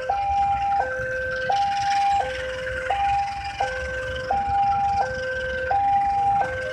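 Electronic level-crossing warning alarm sounding a steady two-tone hi-lo signal, switching tone about every two-thirds of a second, which warns that a train is on the crossing. Under it, the wheels of the passing passenger coaches rumble over the track.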